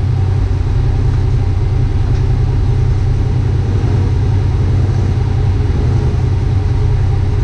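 Off-road vehicle engine idling steadily with a deep, even low rumble and no revving.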